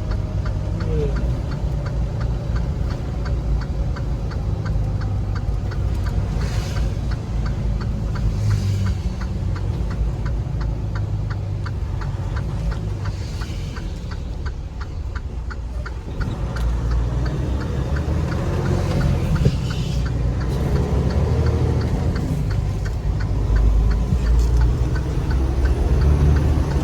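Road noise inside a moving car: a steady low rumble from the tyres and engine, with a fast, even ticking through much of it and a few brief hissing swells.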